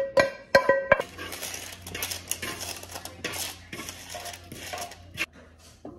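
A plucked-string tune stops about a second in. Then cooked kale and baked yam pieces slide and scrape off a pan and a paper-lined baking sheet into a ceramic bowl, with rustling, light clatter and a couple of sharp clicks near the end.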